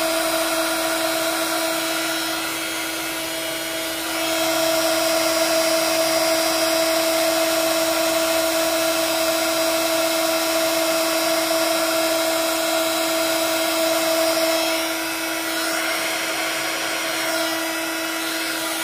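Handheld heat embossing tool (craft heat gun) running steadily, a fan hiss with a constant whine, as it heats embossing powder on a stamped design until the powder melts. It gets a little louder about four seconds in.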